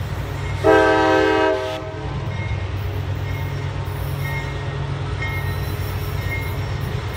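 Diesel locomotive horn sounding one blast of about a second near the start, over the steady low rumble of the approaching CSX coal train's diesel locomotives.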